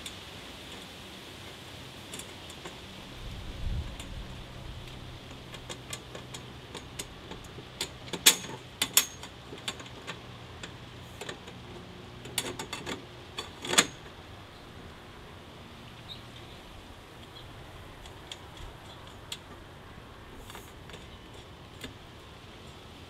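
Sharp metallic clicks and clinks in two clusters, about eight and thirteen seconds in, as a tubular steel compost-tumbler leg frame is worked onto its threaded rods. A dull low thump comes about four seconds in.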